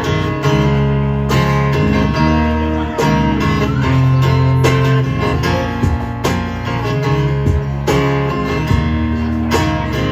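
Instrumental break of a country-rock song with no singing: guitars over a bass line and a steady drum beat.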